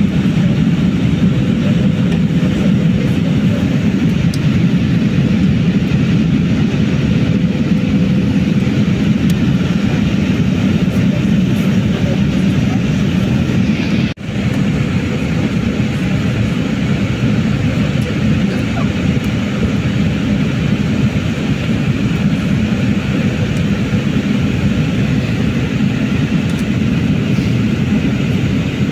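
Steady in-flight cabin noise of an Embraer E195-E2 heard from a window seat by the wing: a low rumble of airflow and the jet's Pratt & Whitney PW1900G geared turbofans, with hiss above it. It dips sharply for an instant about halfway through.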